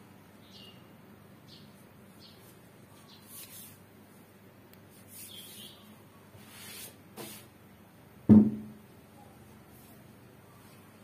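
Short spells of rustling and scraping as a homemade sanding drum on a steel shaft is handled. A little over eight seconds in comes a single loud knock with a short ringing tail as the drum is set down on the wooden workbench.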